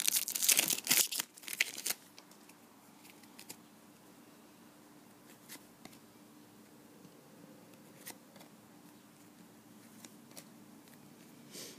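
Foil trading-card pack wrapper crinkling and tearing for about two seconds, then faint occasional soft clicks of cards being handled.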